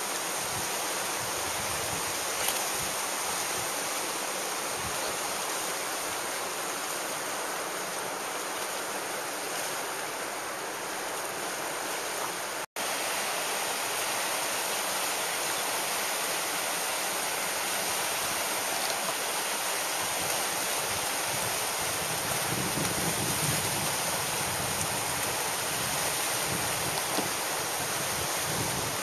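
Steady rushing hiss of churning whitewater in a river rapid. The sound cuts out for an instant about a third of the way through.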